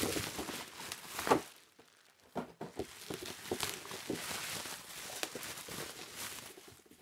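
Cardboard toy-car packaging rustling and crinkling as a boxed diecast car set is handled, with small knocks. The loudest rustle comes just over a second in, then after a short pause there is softer crinkling with light taps.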